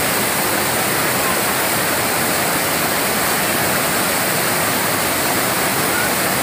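Steady, loud rushing of a broad, low waterfall: river water cascading in white rapids over rock ledges.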